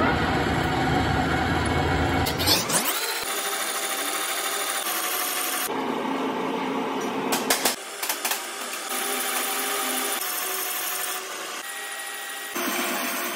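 Metal lathe running, its spindle turning a steel bearing housing while a cutting tool shaves the metal. The sound changes abruptly several times, and the first two to three seconds are louder and deeper.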